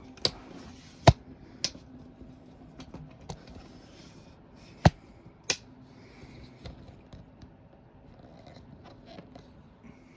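Sharp clicks and scraping from a screwdriver and screws being worked into an aluminum window frame, about five loud clicks spread irregularly over faint scratching.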